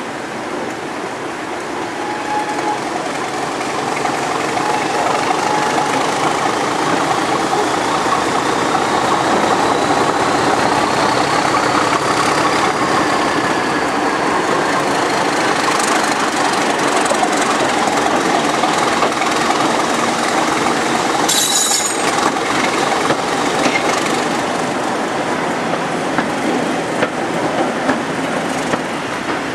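Class 31 diesel locomotive's English Electric V12 engine working as it hauls the train, heard close alongside the loco together with its wheels running on the track. The noise builds over the first few seconds; there is one sharp knock about two-thirds of the way through, and rail-joint clicks near the end.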